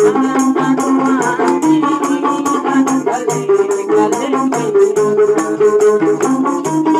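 Gambusu (gambus lute) music: the lute plucked in a quick, moving melody over hand-held frame drums beaten in a fast, steady rhythm of crisp strokes.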